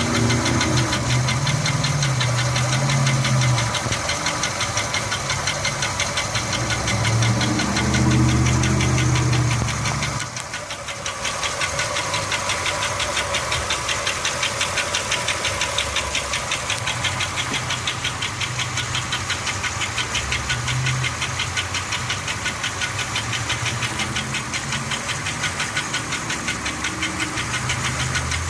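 Pontiac Grand Am's 3.4-litre V6 engine running with a fast, regular knocking noise, described as horrible. The engine note swells twice in the first ten seconds and dips briefly about ten seconds in.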